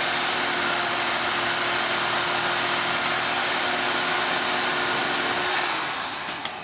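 A motor-driven machine running steadily at full speed with a high whine and a strong rushing hiss, then winding down and cutting off about six seconds in.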